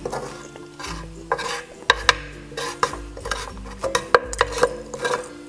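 Wooden spoon scraping and tapping across the bottom of a frying pan, gathering up browned fried rice, in short scrapes and clicks several times a second. Soft background music runs underneath.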